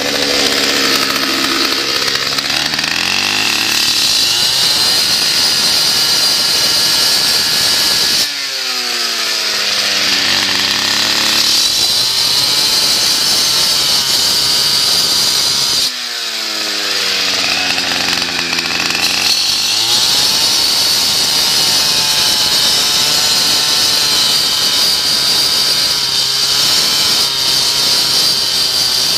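Cut-off saw cutting crack control joints in concrete: the engine running at high speed under load, with a high whine from the blade. Twice the engine's pitch drops suddenly, sags and climbs back over a few seconds.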